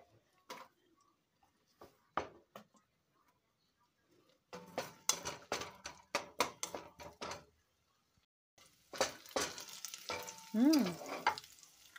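A wooden spatula knocking and scraping against a metal pot as sliced garlic is stirred in melted butter, in a quick run of knocks in the middle. About eight and a half seconds in, a sizzling hiss of the garlic frying in the butter sets in.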